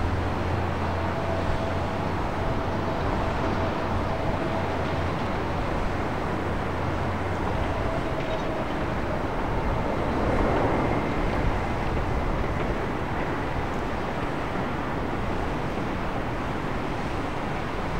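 Jet airliner engine noise: a steady rumble with a faint engine whine, swelling a little about ten seconds in.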